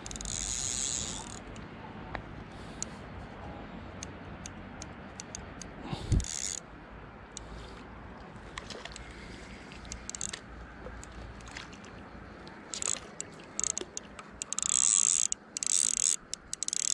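Spinning fishing reel being cranked in several short spells, its gears clicking as the line is wound in.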